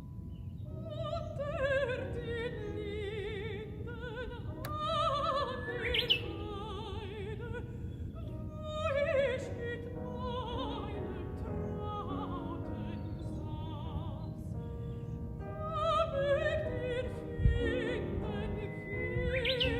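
Background music: operatic singing with a wide vibrato, in long sustained phrases that swell and fall.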